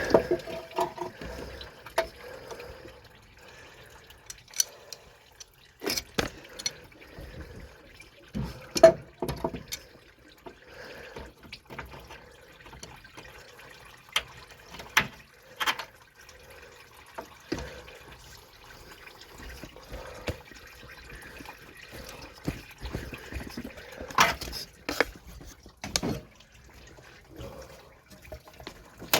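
Scattered clicks and knocks of hand tools and metal parts worked by hand at a car's radiator hoses and transmission cooler lines. Under them, a faint drip and trickle of fluid.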